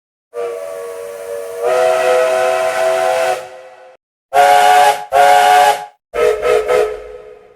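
Steam locomotive chime whistle sounding a chord of several notes at once over a hiss of steam: one long blast that swells louder about a second in, then two short loud blasts, and a last stuttering blast that fades away.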